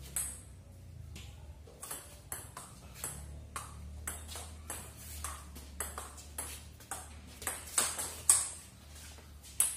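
Table tennis rally: the ping-pong ball clicks in turn off the rubber-faced paddles and the tabletop at about two strikes a second. The hardest hits come near the end.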